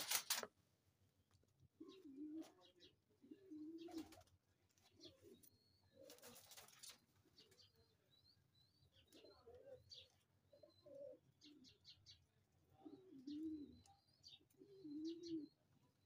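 Domestic pigeons cooing softly: several short, low, wavering coos, in pairs about two seconds in and again near the end. Faint high chirps of small birds come in between, with a brief rustle about six seconds in.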